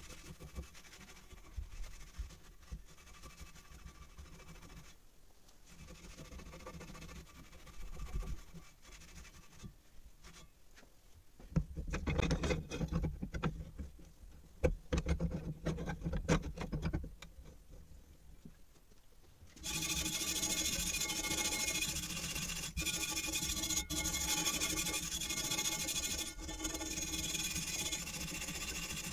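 Soft rubbing of a cloth on a rusty steel shovel blade, then louder irregular knocks and scrapes as the blade is handled in a vise. About two-thirds of the way in, a brass wire brush starts scrubbing the steel blade, a steady, harsh scratching with a metallic ring that is the loudest part.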